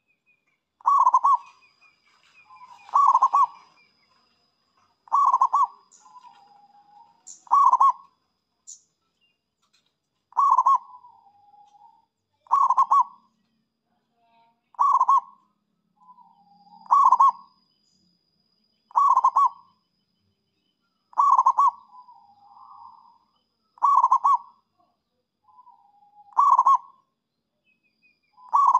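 Zebra dove (perkutut) cooing, its song phrase repeated about every two seconds. Each phrase is a loud cluster of quick cooing notes followed by a few softer, lower trailing notes.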